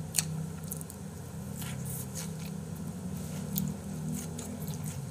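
Close-up chewing of raw beef, with wet, squishy mouth sounds and scattered small clicks.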